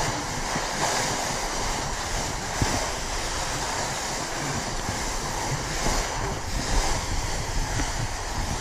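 Skis sliding over coarse spring corn snow, a steady hiss that swells and eases through the turns, mixed with wind buffeting the microphone.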